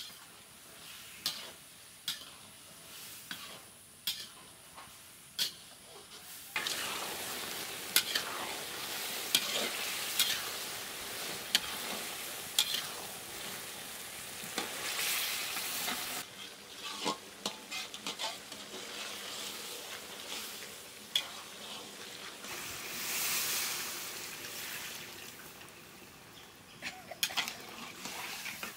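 Metal spatula scraping and clinking against a wide metal pan as chopped ridge gourd is stir-fried, with sharp taps every second or two. About six seconds in, a loud sizzling hiss starts suddenly as the pan steams; it eases after about ten seconds and swells again near the end.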